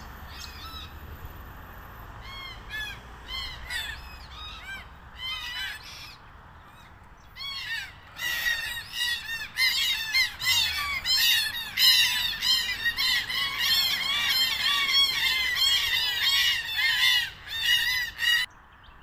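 Red-tailed black cockatoos calling: scattered single calls for the first several seconds, then from about eight seconds many birds calling over one another, louder, until it stops suddenly near the end.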